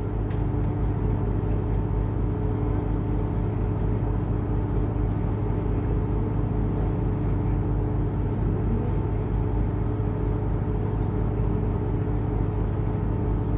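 Excursion boat's engine running steadily, a constant low hum with a few steady tones, heard from on board.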